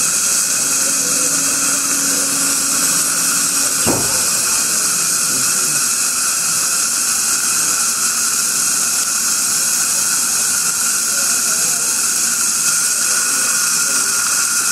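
Steady airy hiss of dental equipment running during a laser gingivectomy, with one sharp click about four seconds in.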